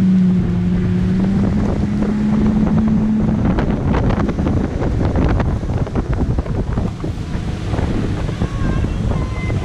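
Yamaha outboard engine of a center console boat running under way, its steady note rising slightly over the first few seconds. After that, wind buffeting the microphone and rushing water take over.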